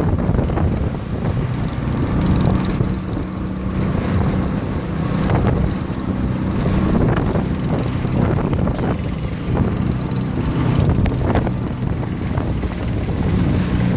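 Motorboat engine running steadily under way, with wind buffeting the microphone and occasional short splashes of water.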